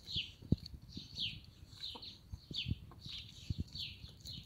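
Birds chirping, a short falling chirp repeated roughly twice a second, over a dog eating from a plastic bowl, its chewing and gulping giving short low clicks and knocks that are the loudest sounds.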